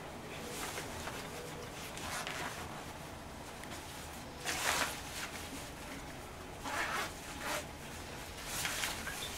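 Rustling of a dog raincoat's fabric and fasteners as it is pulled on and done up around a dog's neck and chest. It comes in short scratchy bursts, about six of them, with the loudest about halfway through.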